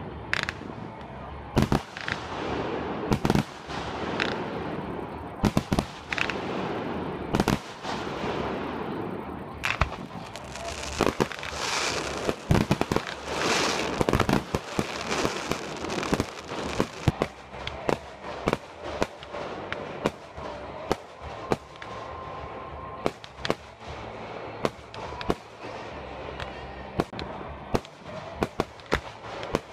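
Aerial fireworks bursting in rapid succession: sharp bangs come several times a second over a continuous din in the first half, then thin to a quick run of separate reports.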